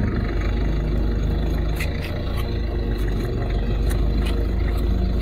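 Car engine running at idle, a steady low rumble, with a few faint ticks.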